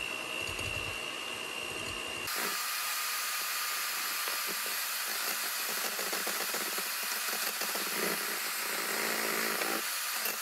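Electric hand mixer running steadily, its beaters whipping eggs into a foam in a glass bowl. A steady motor whine with beater noise, the whine shifting lower about two seconds in.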